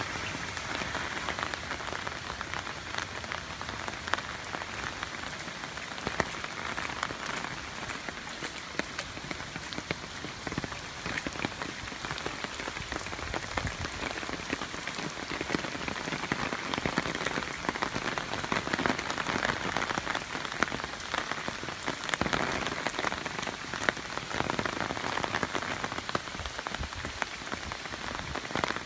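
Typhoon rain falling on wet pavement: a steady hiss of countless small drops splashing into standing water.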